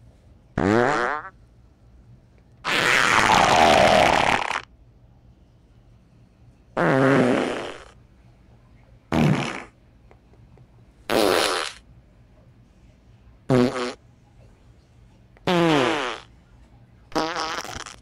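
A series of eight separate farts with short pauses between them. Most are pitched and bend in pitch; the one about three seconds in is the longest and the most hissing.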